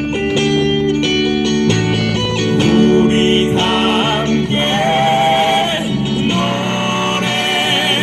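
Live band music: singing over strummed acoustic guitar, with a long wavering held note near the middle.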